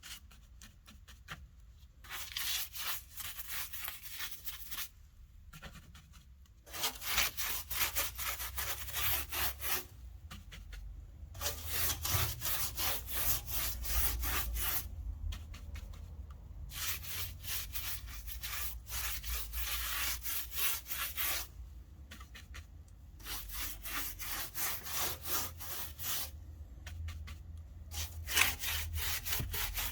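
Hardened car body filler being sanded by hand: quick back-and-forth scraping strokes in about six spells of three to four seconds, with short pauses between.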